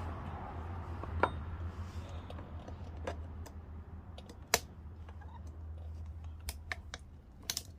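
Small metal clicks and taps of pliers working a snap-ring retaining clip out of a U-joint on a Jeep Wrangler's front driveshaft: a handful of sharp clicks at uneven intervals, the loudest about halfway through, over a low steady hum.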